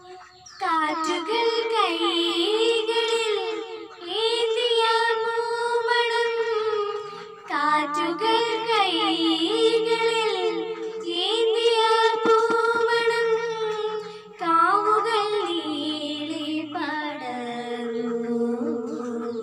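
A girl singing a song solo into a microphone, in long held notes with vibrato, pausing briefly for breath between phrases.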